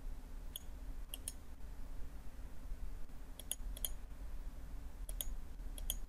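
Computer mouse button clicks: about a dozen short, sharp clicks, mostly in quick pairs, over a low steady hum.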